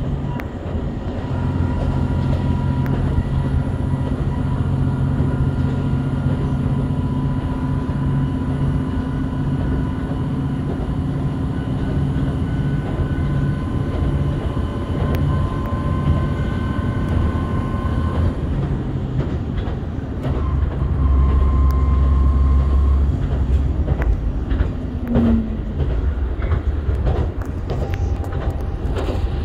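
Shimabara Railway diesel railcar running along the line, heard from on board: a steady low engine drone with a faint whine over it. About two-thirds through the whine stops and the drone goes deeper. Wheels click over rail joints near the end.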